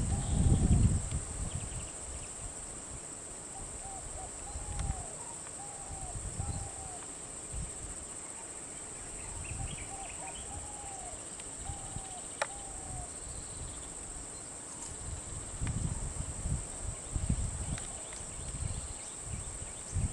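Steady high insect drone with a bird's short arched whistled calls repeated in small groups, and bouts of low rumbling noise at the start and near the end.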